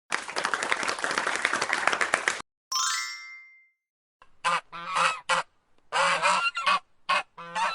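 A donkey braying harshly, then a short chime, then a goose honking repeatedly in short calls from about halfway through.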